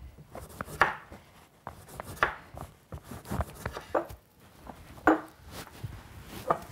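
Chef's knife slicing a lime on a wooden chopping board: a series of irregular knocks as the blade meets the board, then lime slices being dropped into a glass carafe.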